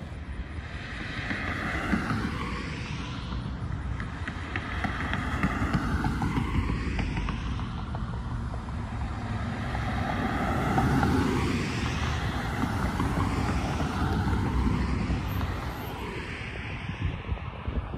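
Road traffic: cars and pickups passing one after another on a multi-lane road, the tyre and engine noise swelling and fading as each goes by.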